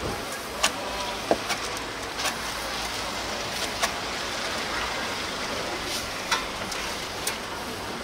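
Steady street traffic noise with irregular sharp clicks and knocks, roughly one every second or two.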